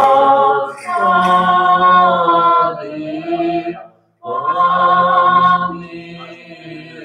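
Unaccompanied liturgical chant: a sung response in a Byzantine-rite panikhida (memorial service), in long held notes. The singing breaks off briefly about four seconds in, then resumes and grows softer near the end.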